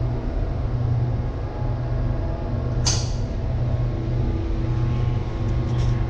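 Steady low drone of a ferry's engines and machinery heard from inside the ship, with one sharp click about three seconds in.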